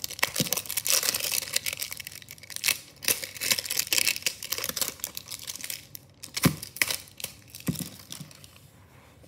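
Thin plastic seal on a slime tub being torn off by its tab and crinkled in the hands, a run of crackling and tearing, with a couple of knocks of the tub about two-thirds of the way through.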